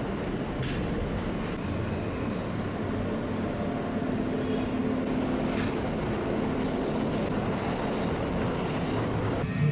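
New York City subway car running, heard from inside the car: a steady rumble and rattle from the wheels and running gear, with a faint steady whine for a few seconds midway.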